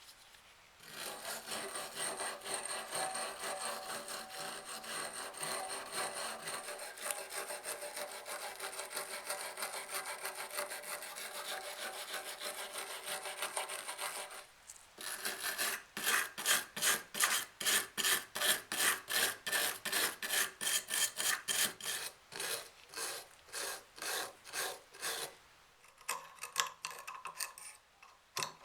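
Hand rubbing or scrubbing with an abrasive. First comes a continuous scrubbing for about thirteen seconds. It then turns to distinct back-and-forth strokes about two a second, which grow fainter near the end.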